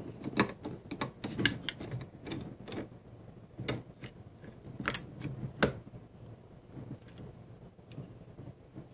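Plastic mouthwash bottles being handled on a wooden desk: a run of irregular small clicks and taps, with a few sharper knocks about four to six seconds in.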